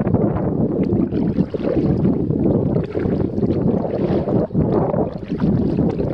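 Wind rumbling on the microphone, mixed with water splashing and sloshing around a kayak on a river.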